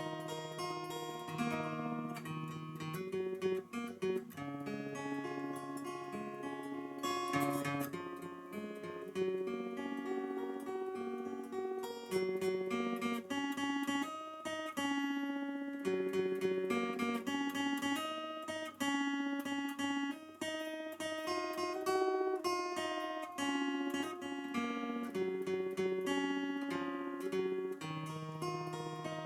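Morris W-100D steel-string acoustic guitar fingerpicked with a thumb pick and finger picks, playing an unbroken solo instrumental: a melody over bass notes.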